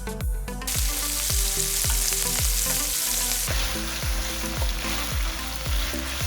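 Food sizzling in a hot frying pan, the hiss starting about a second in and holding steady, under background music with a steady kick-drum beat.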